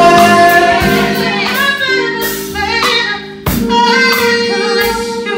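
Live R&B performance: a woman singing into a microphone over held keyboard chords, with drum and cymbal hits, one sharp hit about three and a half seconds in.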